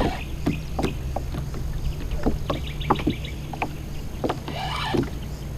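Water lapping and slapping against a kayak hull in wind, with scattered knocks over a steady low rumble. A short run of rapid ticking comes about two and a half seconds in.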